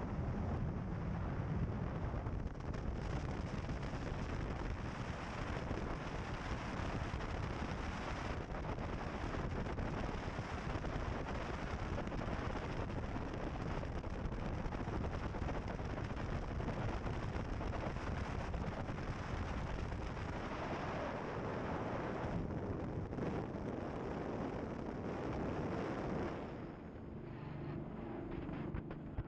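Loud steady roar of a navy assault craft underway: engine noise mixed with wind buffeting the microphone. It drops in level and changes near the end.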